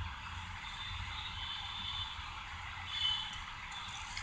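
Steady background room tone from the narration microphone: an even hiss with a low hum underneath, and a faint high whine that swells briefly about three seconds in.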